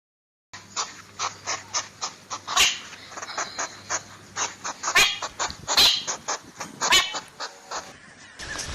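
An animal giving a rapid series of short, sharp calls, several a second, with a few louder ones among them; it starts after a brief silence about half a second in.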